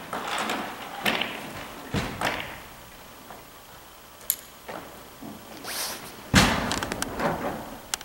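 Dry-tooling ice axes knocking and scraping on the climbing holds and wall panels. There is a string of separate thuds and scrapes with a sharp click a little after four seconds, and the loudest thud comes about six seconds in.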